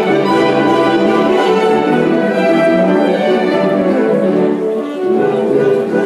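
A live saxophone ensemble playing full, sustained chords, easing briefly about five seconds in before carrying on.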